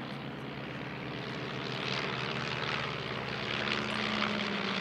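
Propeller engines of three de Havilland Tiger Moth biplanes (four-cylinder Gipsy Major) droning steadily overhead, growing louder as the formation approaches.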